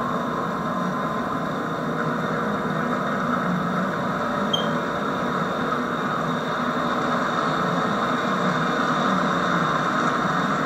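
HO-scale model freight train running on the layout: a steady whir and rumble of the motor and wheels on the rails, heard through the hiss of an old VHS camcorder recording.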